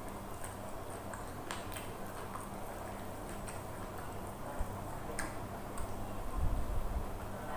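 Mouth sounds of someone eating: a run of quick, soft clicks from chewing over a low steady hum, with a low thump near the end.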